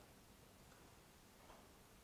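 Near silence: room tone with a couple of faint keystroke clicks from a laptop keyboard.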